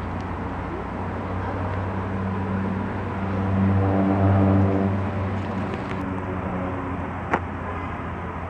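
A large vehicle's engine running steadily with a low hum, swelling louder for a second or two near the middle. A single sharp click sounds near the end.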